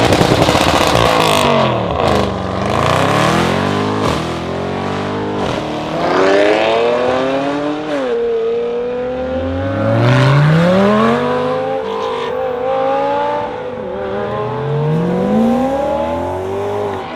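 Audi RS6 C7's twin-turbo V8 through a decatted Milltek exhaust, accelerating hard several times, its pitch climbing with the revs and dropping back in between.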